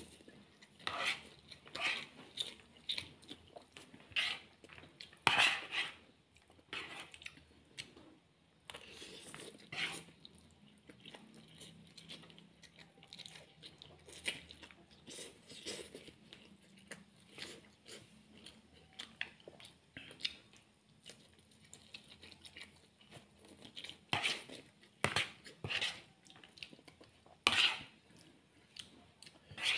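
Close-up eating sounds: instant noodles being slurped and chewed, with a fork clinking and scraping on the plate in irregular short bursts.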